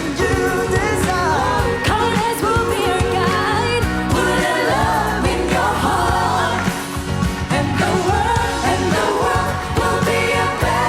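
A worship song with a lead singer and a band accompaniment with a steady beat.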